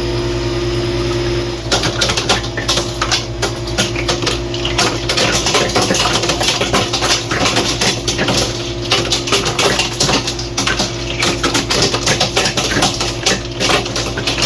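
Hoshizaki ice machine running with a steady hum in its harvest cycle. From about two seconds in comes a dense, irregular clatter of ice cubes dropping from the evaporator as the hot gas frees them.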